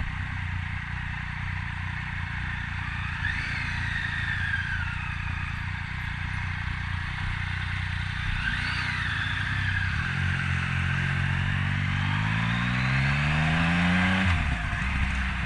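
Motorcycle engine running while riding, its pitch climbing steadily for about four seconds as it accelerates, then dropping abruptly near the end as it shifts up a gear. Two brief high whines rise and fall about three and eight seconds in.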